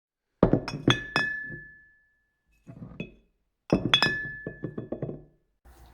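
Glassy clinking: two quick runs of sharp taps, a few seconds apart, several leaving a short ringing tone that dies away.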